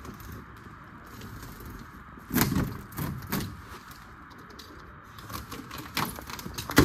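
Polycarbonate sheet being cut by hand along its edge: several short scraping, crackling strokes of the blade through the plastic, the sharpest one near the end.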